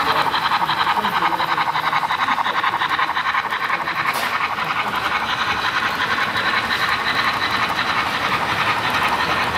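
HO scale model trains running past at speed on the layout: a steady rapid clicking of wheels on the rails.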